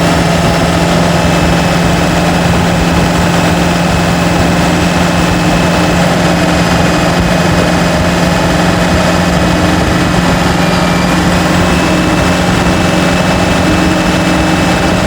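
Turbocharged pickup engine running steadily while driving at road speed: a constant drone that stays the same pitch, mixed with road and wind noise.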